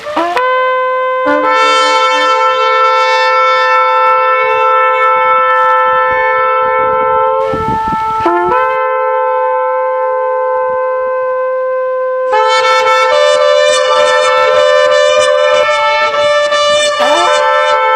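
Shofar (ram's-horn trumpet) sounding long, held blasts. The blasts break briefly about halfway through, and there is a rising slide into the note near the end.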